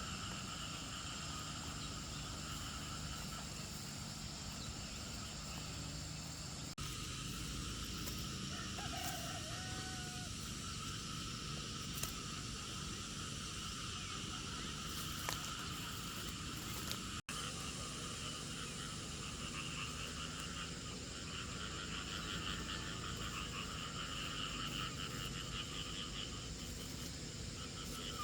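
Forest ambience of insects chirring steadily at several pitches, with a pulsing trill joining in for the last third. A short chirp comes about a third of the way in, and there are a couple of faint clicks.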